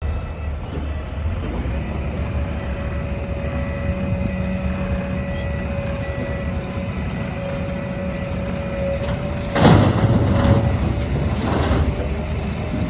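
Heavy diesel machinery running steadily, a low rumble with a thin steady whine over it, from an excavator loading a dump truck. Near the end, two loud rushing bursts stand out over the engine.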